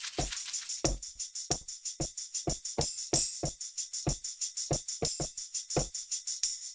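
Hip-hop drum loop from a sample pack played on an MPC: a syncopated kick drum pattern under a steady tambourine-like jingle.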